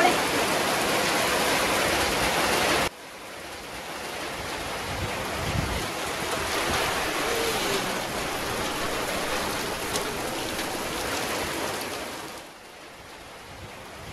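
Steady hiss of falling rain, loud for the first three seconds, then dropping abruptly to a softer rain sound with a few light taps, and lower again near the end.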